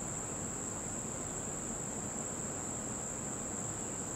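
A steady, unbroken high-pitched insect chorus over a faint background hiss.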